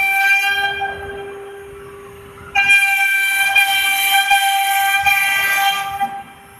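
CNC router with water-cooled 3 kW spindles running at high speed, a steady high-pitched whine with a hiss of cutting over it. The whine fades about a second in, returns loud and sudden about two and a half seconds in, and drops off about six seconds in.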